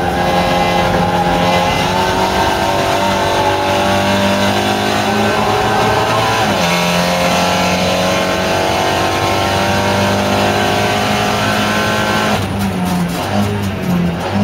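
SEAT Leon Supercopa race car's turbocharged four-cylinder engine, heard from inside the cockpit, pulling under load with its pitch climbing slowly. About six seconds in the pitch drops sharply. Near the end the engine note turns choppy and uneven as the car slows for a corner.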